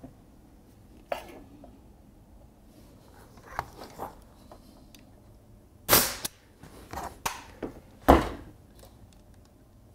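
Nail gun firing nails into the wooden jig: two sharp loud shots about two seconds apart in the second half, with lighter clicks and knocks of the tool and workpiece being handled between them.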